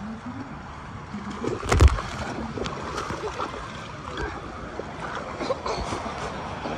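A person jumping into a pool: one loud splash about two seconds in, followed by water splashing and sloshing.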